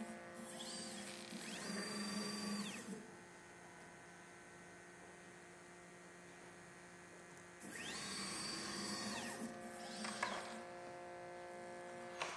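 Stepper motors of a desktop pick-and-place machine driving the head: two moves, one near the start and one about eight seconds in, each a whine that rises, holds, then falls as the motors speed up and slow down, over a steady electrical hum.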